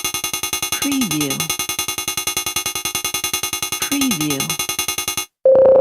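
Electronic UI counter sound effect: rapid, evenly spaced synthetic ticks, about ten a second, counting for about five seconds and stopping abruptly. After a short gap a steady high beep starts just before the end.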